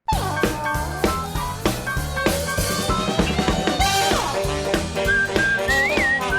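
Upbeat cartoon music cuts in abruptly: a drum kit keeps a steady beat over a moving bass line, with short whistle glides near the end.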